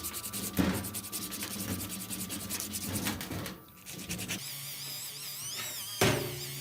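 Rapid back-and-forth hand sanding, sandpaper rubbing on a part of the old bench grinder, for about three and a half seconds. The rubbing then stops, a wavering high tone comes in, and a sharp knock sounds near the end.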